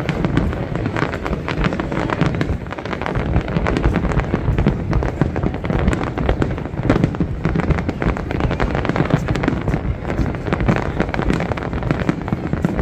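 Aerial fireworks display: a dense, continuous run of bangs and crackling bursts, one on top of another.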